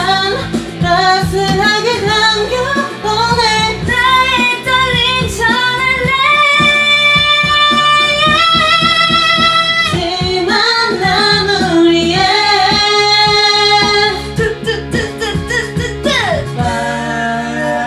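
Young women singing a K-pop song into karaoke microphones over a karaoke backing track; about halfway through, the melody climbs into long held notes.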